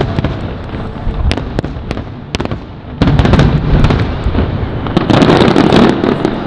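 Aerial fireworks display: a string of sharp cracks and pops, then from about three seconds in a sudden, louder run of deep booms and dense crackle.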